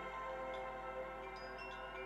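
Wind chimes ringing: many overlapping tones hang on, with a few fresh high strikes now and then.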